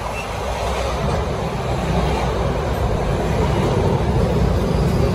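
CTA 'L' rapid-transit train pulling in alongside the platform, its wheels rumbling on the rails under a steady hum, growing louder as the cars run past.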